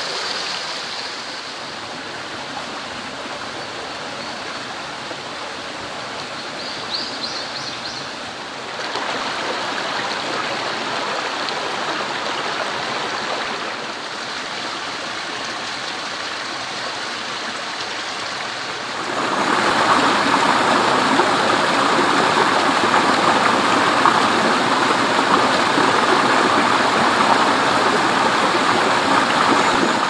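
Steady rush of a rocky mountain stream pouring over small cascades. It grows louder in steps, with the loudest stretch in the last third.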